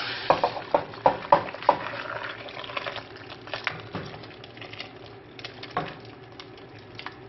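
Tomato broth poured from a steel saucepan into a steel pot of stuffed zucchini, splashing steadily, with a quick run of sharp metal-on-metal clinks in the first two seconds and a few more later as the pans knock together.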